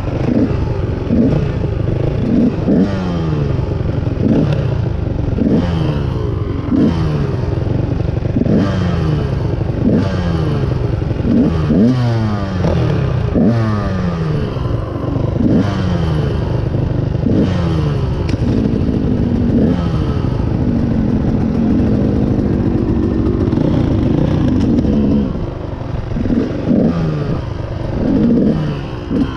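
Dirt bike engine revving while riding, its pitch climbing and falling again about once a second. About twenty seconds in it holds a steadier note for several seconds, then drops off briefly before the revving resumes.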